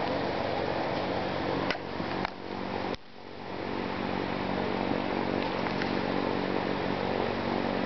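Steady, fairly loud motor hum. About two seconds in it drops away with a couple of clicks, then rises back over the next two seconds.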